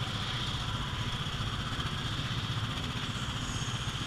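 Small gasoline engine of an antique-style ride car running steadily at low speed, a pulsing low putter with a constant high hiss over it.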